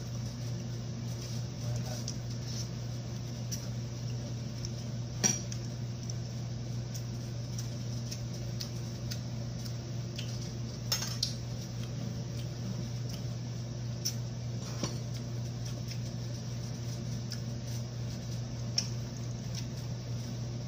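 Spoon and fork clinking and scraping against a plate while eating: a few scattered sharp clinks, the loudest about five seconds in and two close together around eleven seconds, over a steady low hum.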